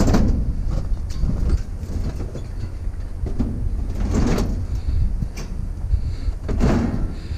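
Vehicle loaded with scrap metal driving: a steady low road rumble, with the load rattling and clanking louder at the start, about four seconds in and near the end.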